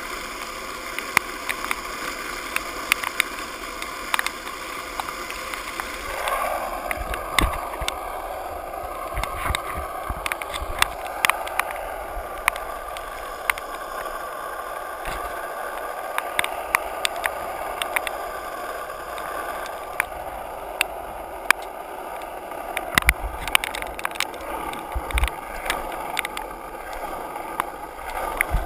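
Skateboard wheels rolling over wet, puddled asphalt: a steady hiss of water spray, broken by frequent sharp clicks and knocks. The hiss grows louder about six seconds in.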